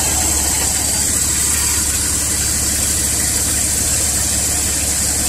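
Car engine idling steadily with a steady high hiss, running so that head gasket sealer circulates through the cooling system to seal a leaking head gasket.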